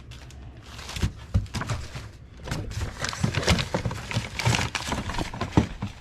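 Irregular knocks, clunks and rustling as stored items are handled and moved around.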